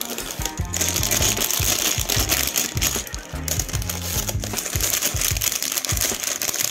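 Clear plastic bags full of Lego bricks crinkling and rustling as they are handled and pulled from the box, getting louder about a second in. Background music with a low repeating bass line runs underneath.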